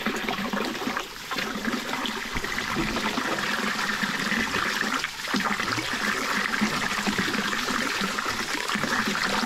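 Water trickling steadily, dipping briefly twice.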